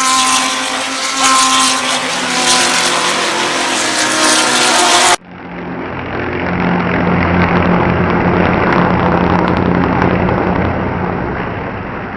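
GT3 race car engines running at speed past the track, loud with a clear engine note. About five seconds in the sound cuts abruptly to another stretch where a race car's engine note swells as it comes by and then fades away.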